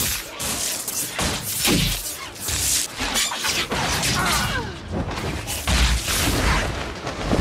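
Movie sound effects of a magic duel: a rapid series of fire blasts, whooshes and booming impacts, with orchestral score underneath.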